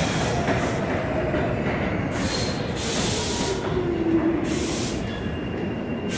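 New York City subway train slowing as it pulls into the station: a steady rumble of wheels on rails, with a whine that falls in pitch as the train slows. Short bursts of hiss come about two seconds in and again near five seconds.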